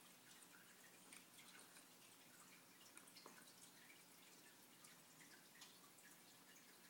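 Near silence: faint room tone with a steady hiss and low hum, dotted with many soft scattered ticks.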